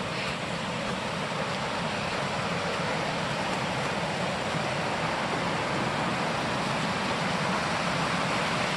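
Steady rushing of water over a cascade on a mountain creek, growing slightly louder as it comes closer.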